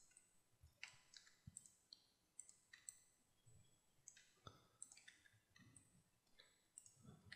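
Faint, irregular clicking of a computer mouse and keyboard keys, a click or two every second, over near silence.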